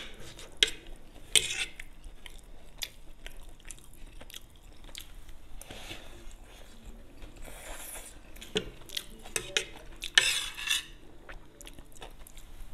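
Metal cutlery clicking and scraping against a plate of chow mein noodles in scattered sharp clicks. A couple of longer noisy stretches of eating a mouthful of noodles come about eight and ten seconds in.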